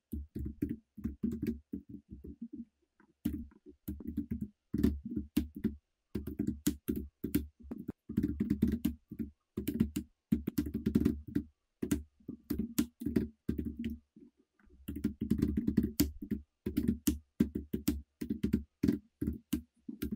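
Typing on a computer keyboard: irregular runs of rapid keystrokes, broken by a few short pauses.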